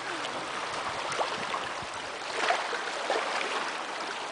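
River current rushing and lapping steadily at the water's edge.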